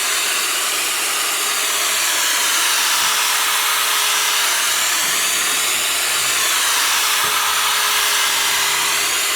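Power drill spinning a 2000-grit sanding pad as it wet-sands a plastic headlight lens. It runs steadily, with a faint hum and a slight rise and fall in pitch as the pad is worked across the lens.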